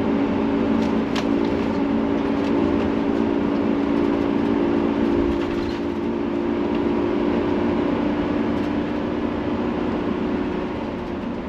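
Tiffin motorhome driving up a steep grade with the throttle floored: a steady engine drone under heavy load, with road and tyre noise inside the cab. It eases slightly near the end.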